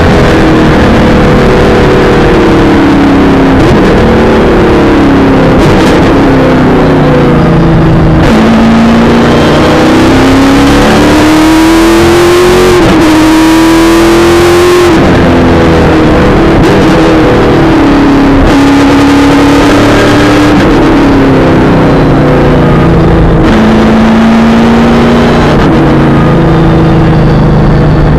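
V8 supercar's V8 engine heard loud from inside the cockpit, driven hard around the track: the pitch rises under acceleration and drops sharply at each gear change, several times over, with downshifts for the corners.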